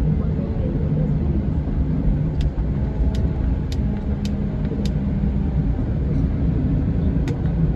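Scania K410 coach's 13-litre six-cylinder diesel engine running steadily with a low rumble. A few faint clicks sound through it, about half a second apart from about two seconds in, and once more near the end.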